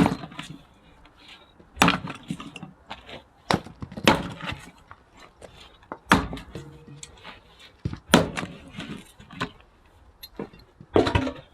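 An axe splitting firewood logs: a series of sharp strikes, about one every two seconds, each followed by the clatter of split wood falling.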